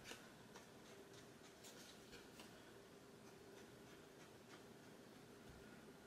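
Near silence with faint soft taps and scuffs: a sponge ink dauber being dabbed along the edge of a card tag.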